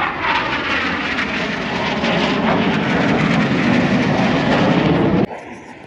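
Red Arrows BAE Hawk T1 jet passing overhead, its Adour turbofan giving a loud, steady roar that cuts off abruptly near the end.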